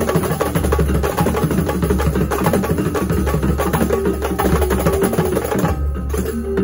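Kuntulan drum ensemble: many hand-held frame drums (rebana) struck in a fast, dense interlocking rhythm over the deep beats of two large red barrel bass drums (jidor). About six seconds in, the dense drumming thins out.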